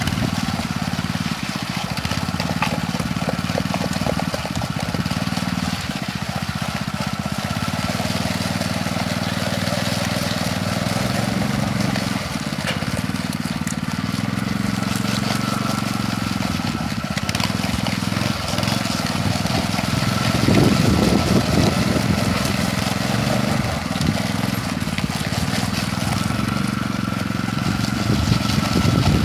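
Walk-behind concrete power trowel's small gasoline engine running steadily at working speed as its rotating blades finish a freshly poured concrete slab.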